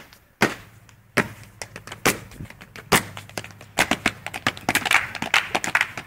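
Sharp hand claps and foot stamps on a tiled floor, beating out a dance rhythm: a few spaced strikes at first, then a quicker, denser run from about four seconds in.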